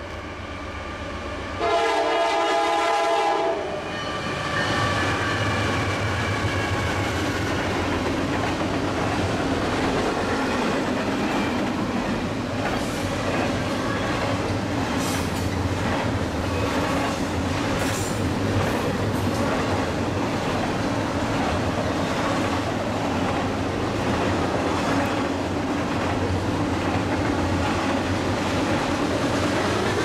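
A Norfolk Southern diesel freight locomotive sounds its horn in one short blast, then the locomotives pass and a long double-stack intermodal train rolls by. There is a steady low engine rumble, and the wheels clatter over the rail.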